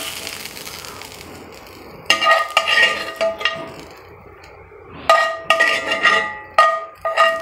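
Metal spoon scraping and knocking against a cast iron frying pan while scooping out caramelized onions, the pan ringing after each knock, in two bursts: about two seconds in and again about five seconds in. A faint sizzle of hot oil fades away over the first couple of seconds.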